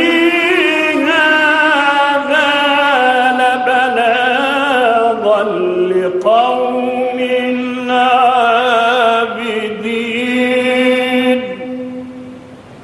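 A man reciting the Quran in the melodic, drawn-out tajweed style, holding long ornamented notes into a microphone. He breaks off briefly about six seconds in, then stops near the end.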